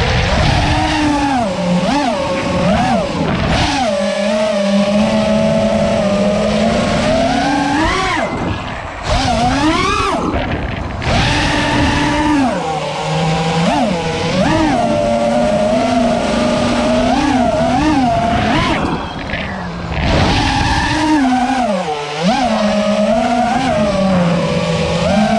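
FPV quadcopter's brushless motors and propellers whining hard, the pitch swooping up and down with every throttle change. A few short lulls break it, around a third of the way in and again past the middle.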